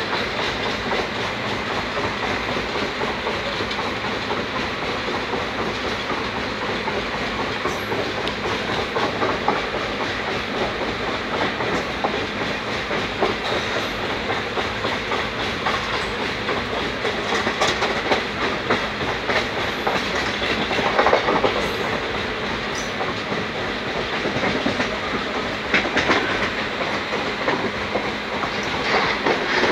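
Passenger train running along the track, heard from an open coach doorway: steady running noise of wheels on rails and rushing air, with a few sharper knocks in the later half.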